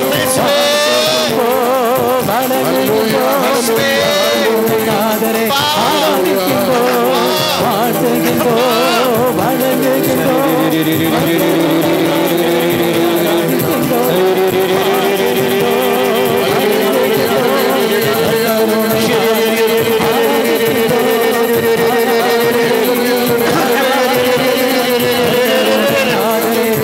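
Slow devotional worship music: a melody of long, wavering held notes over a steady sustained accompaniment.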